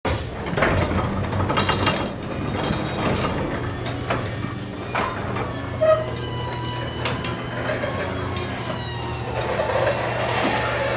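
Scattered mechanical clicks and clanks over a steady low hum, with a short tone about six seconds in and a faint slowly falling whine after it.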